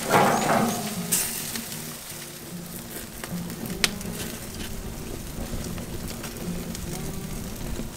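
Beef rib sizzling on a grill grate over hardwood coals, a steady hiss with scattered crackles and one sharp pop about four seconds in. A louder swell of noise comes right at the start as the meat is handled.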